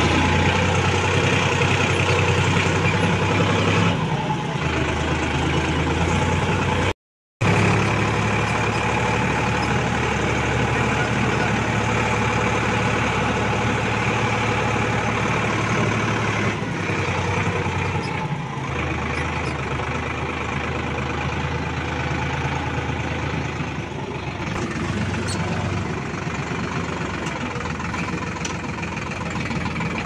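Sonalika 47 tractor's diesel engine running steadily as the tractor drives along, heard close up from the driver's seat; its low engine note shifts a few times, and the sound drops out briefly about seven seconds in.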